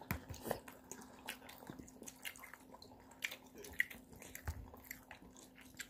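A child eating noodles with a fork from a bowl: chewing and mouth sounds with many small, scattered clicks.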